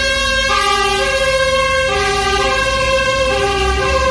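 Fire engine's two-tone siren sounding in a steady high-low alternation, each tone lasting under a second, over the low rumble of the truck's engine and the traffic.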